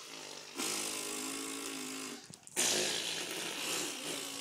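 People imitating a lawnmower engine with their mouths: long buzzing, sputtering lip-and-voice drones, one breaking off about two seconds in and a second, louder one starting just after.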